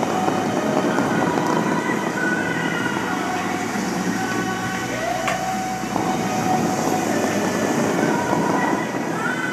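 The Dubai Fountain's water jets shooting and falling during a show: a loud, steady rush of spraying water.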